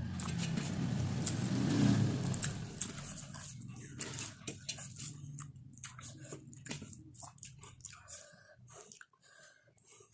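A person chewing a mouthful of food close to the microphone, with many irregular wet mouth clicks and smacks.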